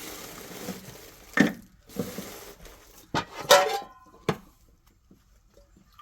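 Kitchen vessels such as a bowl, basin and measuring cup clattering as they are handled for dough-making: a rushing noise in the first second, then several sharp knocks, one ringing briefly about three and a half seconds in.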